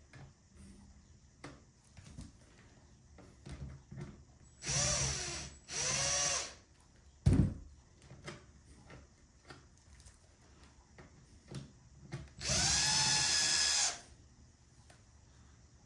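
Power drill driving screws out of the back of a steering wheel: two short runs a few seconds in and a longer run near the end, each a whine that rises as the motor spins up and falls as it stops. A sharp knock between them, with light handling clicks.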